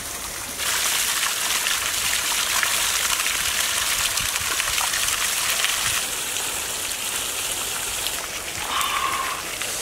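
Water trickling and splashing down a small rock-and-cement fountain, a steady hiss that gets louder about half a second in and drops back about six seconds in.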